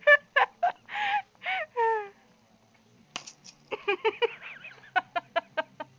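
People laughing in short, breathy bursts with a wheezing squeal. After a brief pause about two seconds in, a fast run of giggling follows.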